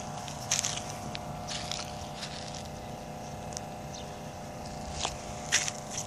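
Footsteps crunching on dry, gravelly desert ground, a few irregular steps, over a steady low hum.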